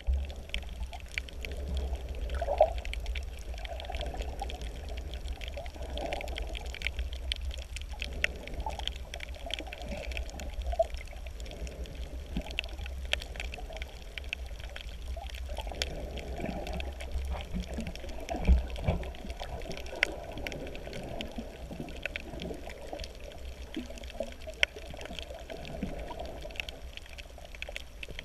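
Muffled underwater sound of water sloshing and bubbling around a submerged camera, over a steady low rumble, with scattered sharp clicks and crackles throughout. There are a couple of louder thumps, one early on and one about two-thirds of the way through.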